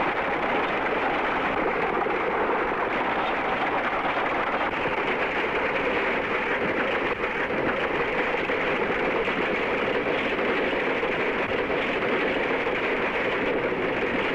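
Steady rushing, rumbling noise with no clear beat, on a muffled old film soundtrack with no high end.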